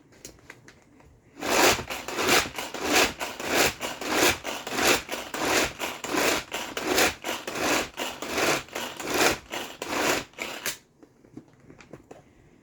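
Tupperware pull-cord chopper being worked by hand, its cord yanked rapidly, about twenty pulls at two to three a second, each giving a whirring rasp as the blades spin through basil for pesto. It starts about a second and a half in and stops near the end.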